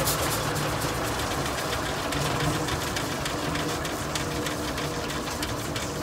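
Steam traction engine running and turning the belt drive for a sawmill: a steady rhythm of exhaust beats and motion-work clatter, several to the second. Steam hiss at the start dies down after the first moments.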